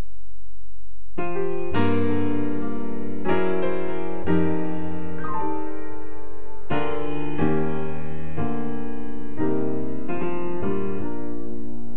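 Slow piano music, notes and chords struck about once a second, starting about a second in.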